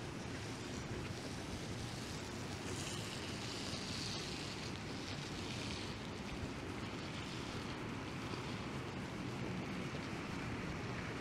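Wet city street ambience: a steady hiss, with a vehicle's tyres swishing past on rain-wet pavement, swelling and fading between about three and six seconds in.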